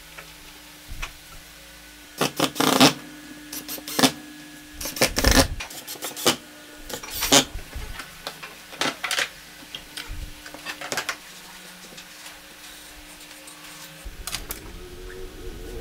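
Hand screwdriver driving wood screws into a wooden fence: a string of short rasping, creaking turns that come in bursts for about ten seconds.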